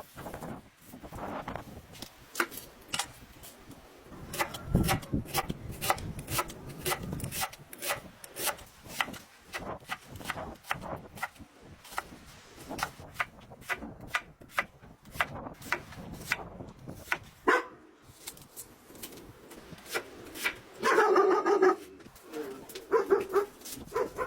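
A long run of short, sharp knocks and taps, irregular and at times several a second. About 21 seconds in comes a pitched animal-like call lasting about a second, followed by a few shorter calls.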